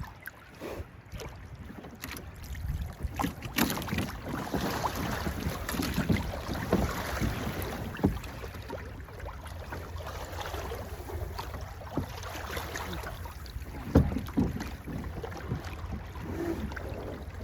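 Small boat under way on the water: wind buffeting the microphone and water sloshing against the hull, with scattered sharp knocks or slaps, the loudest about 14 seconds in.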